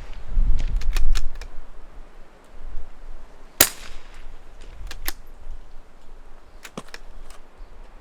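.22LR rifle shots: sharp single cracks a second or more apart, the loudest about halfway through, with fainter clicks between them.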